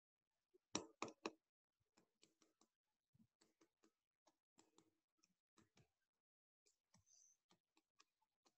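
Near silence broken by small clicks: three close together about a second in, then a scatter of much fainter ticks.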